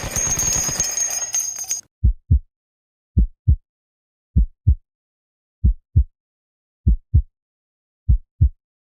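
A loud, dense clatter cuts off abruptly just under two seconds in. A heartbeat sound effect follows: six low lub-dub double thumps, about one every 1.2 seconds.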